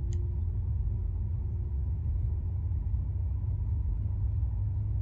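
Low, steady road and engine rumble of a car heard from inside the cabin while driving, with a faint steady hum above it.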